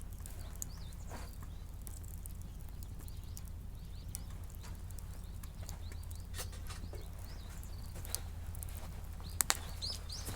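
Wood fire crackling, with irregular sharp pops and a close pair of louder pops near the end, over a steady low hum.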